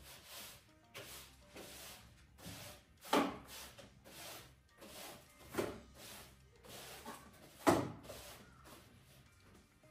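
Broom bristles sweeping in short, repeated strokes across the floor toward a dustpan, with three louder knocks about three, five and a half, and nearly eight seconds in.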